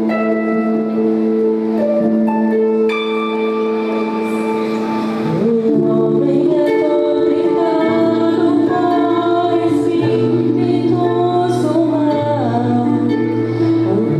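Gospel worship music with held keyboard chords, joined by women's voices singing together from about five seconds in.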